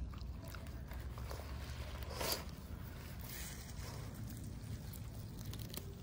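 Small dog rustling and nibbling at leaves and grass, with scattered small crunches and one louder rustle about two seconds in, over a low steady rumble.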